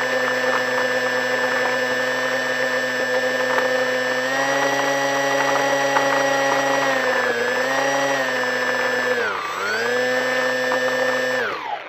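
Multiplex Shark RC airplane's motor and propeller running at a steady low throttle, heard close up from the plane's own onboard camera. It dips in pitch twice, then spins down to a stop near the end.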